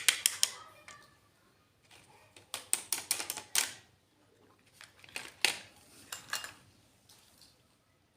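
Miniature toy kitchen pieces being handled: quick runs of light clicks and clinks in three short clusters, with quiet gaps between them.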